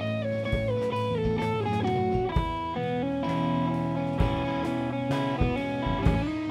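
Electric guitar solo on a Stratocaster-style guitar: a single-note melody that steps downward, then climbs to higher, held notes. Bass and drum hits play underneath.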